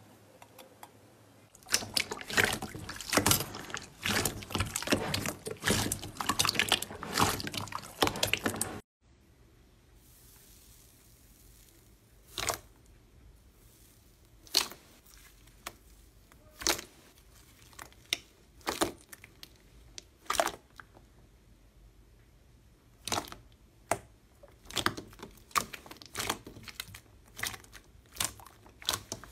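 Hands squishing clear slime in a glass bowl: dense wet crackling and squelching that stops abruptly. Then thick pudding slime being stretched and pressed, giving single sharp pops about every two seconds, coming faster near the end.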